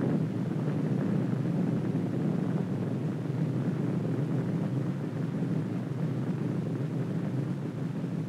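A steady low rumble, easing slightly over the seconds, with no distinct events in it.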